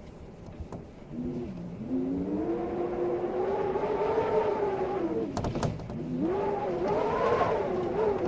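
Wind howling in gusts: a pitched moan that swells about a second in, wavers, dips a little past the middle and rises again. A few sharp clicks or rattles come just before the dip.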